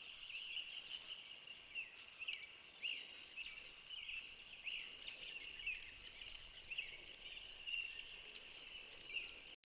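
Outdoor evening ambience: a steady chorus of many short, high chirps and peeps overlapping one another. The sound cuts off abruptly just before the end.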